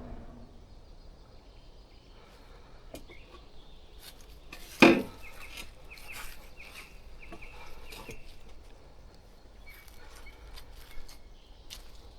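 A single sharp, loud crack or knock about five seconds in. It is followed by a quick run of short, high repeated calls, like a bird's chatter, with faint scattered clicks over quiet forest background.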